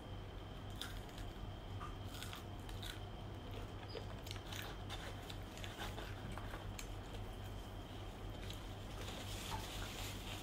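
A child biting and chewing a crispy-coated fried chicken drumstick: quiet, irregular crunching of the batter, with a paper napkin rustling near the end.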